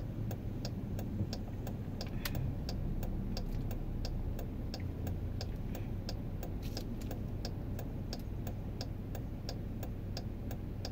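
Car turn-signal indicator clicking at an even rate, a few clicks a second, over the low hum of the car's cabin while stopped to make a turn.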